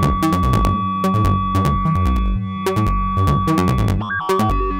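Make Noise modular synthesizer playing an additive-synthesis voice from the Telharmonic's harmonic output: a fast sequenced pattern of short, sharply struck notes over low bass notes, with a steady high tone underneath.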